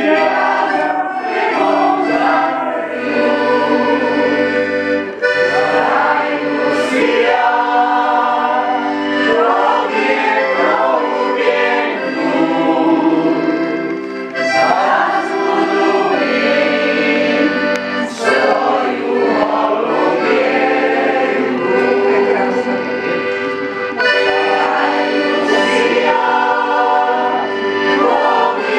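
Mantovanelli piano accordion playing a folk song, with a costumed folk choir singing along.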